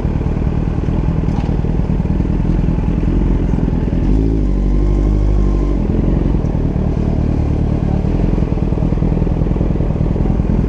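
Motorcycle engine running while being ridden, a continuous low drone. Midway it settles into a clearer, steady note for about two seconds.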